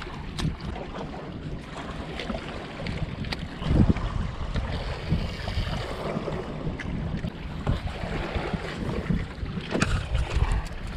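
Wind rumbling on the microphone over lapping river water, with a few knocks and clicks as fishing rods are set down among the rocks; one knock about four seconds in stands out.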